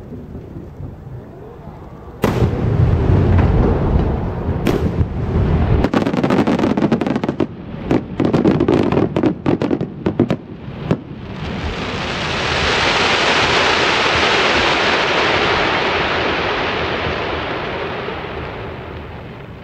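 Aerial firework shells bursting: a heavy boom with a long low rumble about two seconds in, a second bang a couple of seconds later, then several seconds of rapid sharp crackling. After that a long even hiss swells and slowly fades near the end.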